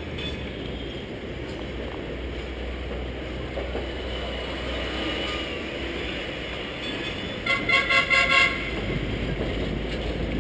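Hong Kong double-decker tram running along its rails with a steady low rumble. About three-quarters of the way through, its gong rings out in a quick run of about half a dozen strokes lasting roughly a second, the loudest sound here.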